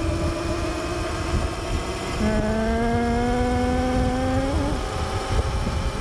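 Wind buffeting the handlebar-mounted phone's microphone as a Razor electric dirt bike with a 48 V 2 kW brushless motor kit is ridden at speed. About two seconds in, the motor's whine comes up and rises gently in pitch for a couple of seconds as the bike accelerates, then drops away.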